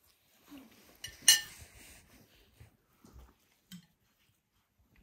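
Plates and cutlery clinking at a dinner table as meat is served onto plates: one sharp, ringing clink about a second in, then a few softer taps and knocks.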